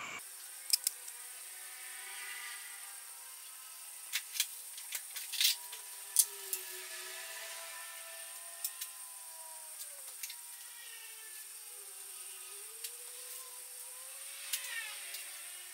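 Saucepan of water heating on a lit gas burner: a steady faint hiss with a faint wavering hum, broken by scattered sharp ticks, a few in quick pairs.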